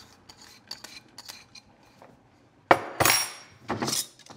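Light taps and scraping as chopped onion and garlic go from a bowl into a pot. Then, near the end, a sharp clink and about a second of clattering as a glass jar of black beans is handled at the stove.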